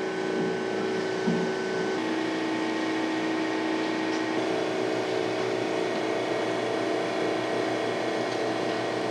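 A steady mechanical hum over a constant hiss, its held tones shifting abruptly about two seconds in and again a little past four seconds.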